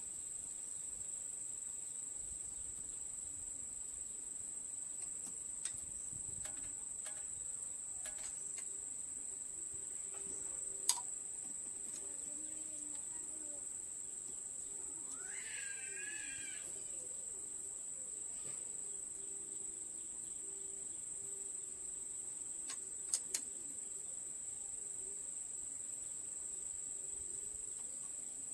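Steady high-pitched insect trilling, like crickets. A few sharp clicks cut through it, and a brief wavering call rises about halfway through.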